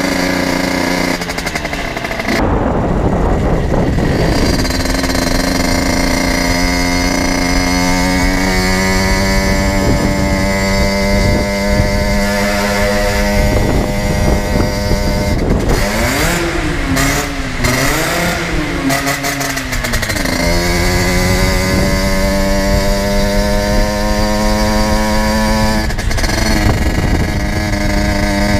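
Generic Trigger SM 50's 50cc two-stroke engine with an aftermarket Turbokit exhaust, ridden at steady high revs over wind rush on the microphone. The revs drop and pick up again about two seconds in, and between about 16 and 20 seconds the engine note wavers up and down before settling again.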